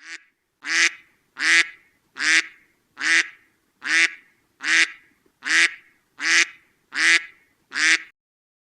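Duck quacking: a steady series of about ten loud quacks, evenly spaced about three-quarters of a second apart.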